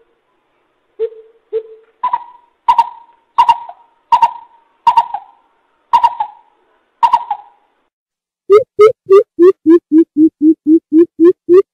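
Coucal (bubut) calling in a string of hollow hoots. Two low hoots come first, then seven higher, sharper notes about 0.7 s apart, and near the end a fast run of low hoots at about three a second.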